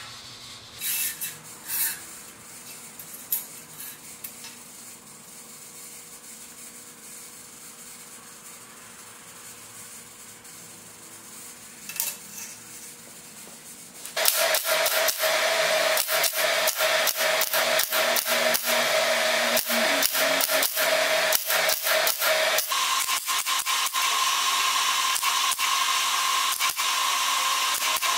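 A few light metal clicks as a small clip and plate are set down on a steel bench. About halfway through, a MIG welder strikes up: a loud, continuous crackling sizzle with a steady tone beneath it that steps higher a few seconds before the end.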